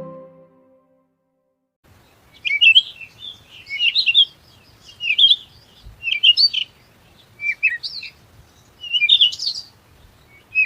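A songbird chirping in a series of short, high phrases, about one every second, beginning about two seconds in. The last chime-like note of the intro music fades out at the very start.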